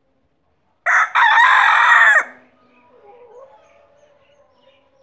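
Rooster crowing once, about a second in: a short opening note, then a long held, wavering note, about a second and a half in all.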